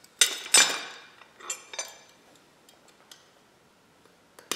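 Metal motorcycle brake and guard parts clinking and clanking as they are handled and set down: two loud clanks with a short ring in the first second, two lighter clinks a little later, then faint ticks and a sharp clink near the end.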